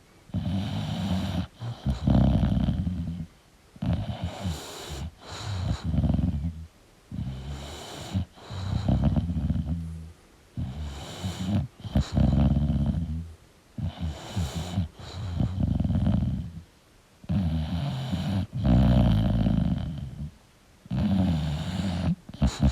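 English bulldog snoring in its sleep, one snoring breath after another, each about a second long, with short quiet gaps between.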